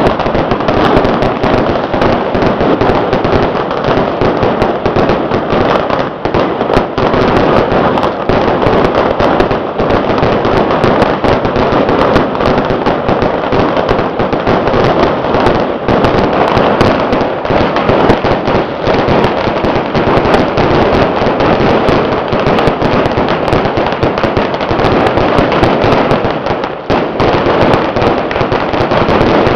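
Strings of firecrackers going off in a dense, continuous barrage of rapid cracks and pops, loud and without a break.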